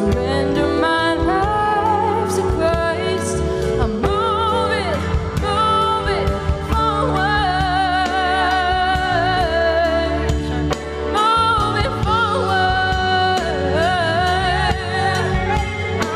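Gospel music: singers with vibrato over a live band with bass, in a church worship medley.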